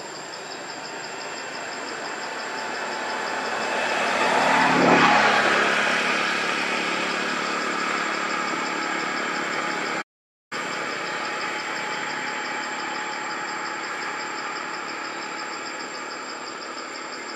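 A motor vehicle engine passing by, swelling to its loudest about five seconds in and then slowly fading, over a steady pulsing chorus of insects. The sound drops out completely for half a second about ten seconds in.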